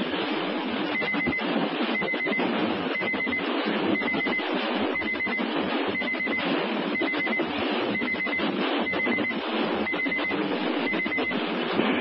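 Weather radio broadcast audio during a required weekly test: a steady hiss with a short, high, rapidly pulsed beep about once a second.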